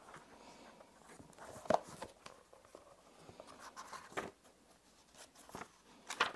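Soft paper rustles and light taps from a book handled in the hands and its pages leafed through: a few short, quiet sounds, the loudest about a second and a half in.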